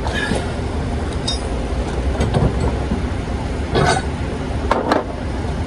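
A few sharp metallic clinks of steel hitch parts and a wrench being handled, over a steady low rumble.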